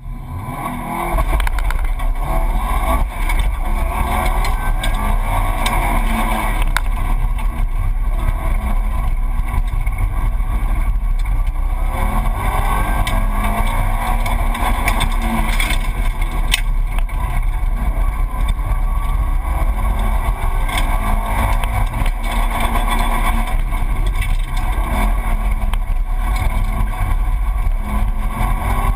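Subaru Impreza WRX STi's turbocharged 2.5-litre flat-four engine pulling hard through an autocross course. The engine launches about a second in and then runs loud, its revs rising and falling with each gear and corner over a deep rumble.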